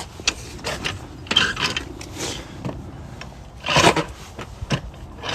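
Car jack and tools being handled as the car is let down onto its spare: scattered metal clicks and scrapes, with a louder scraping clatter a little under four seconds in.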